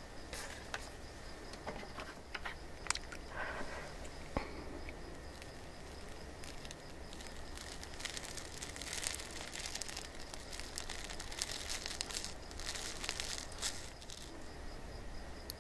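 Close-miked ASMR sounds of a metal fork cutting into a many-layered tiramisu crepe cake: scattered soft clicks, and two short stretches of crinkly, sticky noise about eight and twelve seconds in.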